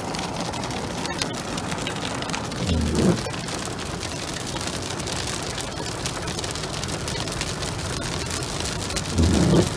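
Hail mixed with rain pelting a car's roof and windshield as a dense, steady pattering, heard from inside the car. Two short low sounds stand out, about three seconds in and near the end.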